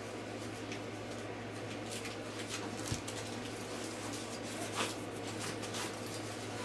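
Faint handling sounds as a blade plug is worked into a lightsaber hilt: a soft knock about three seconds in and a light click near five seconds, over a steady low hum.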